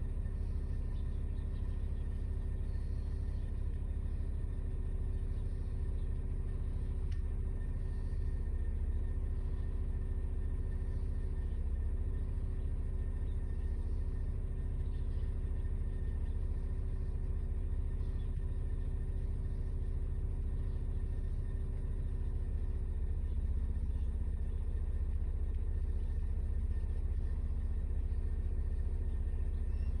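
Steady low rumble of a car idling, heard from inside the cabin, with faint steady hums above it.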